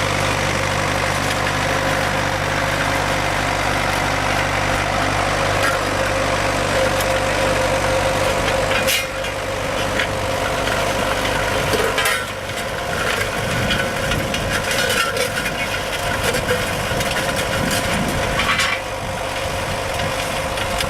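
Tractor engine running steadily, then the sound changes abruptly about nine seconds in and again about twelve seconds in, becoming less even, with a few sharp clicks.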